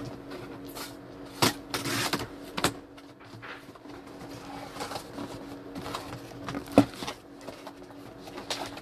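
Cardboard box being opened by hand: flaps pulled apart and packing tape torn, giving sharp crackles and scrapes of cardboard, a cluster about a second and a half to two and a half seconds in and the loudest one near the end. A steady low hum runs underneath.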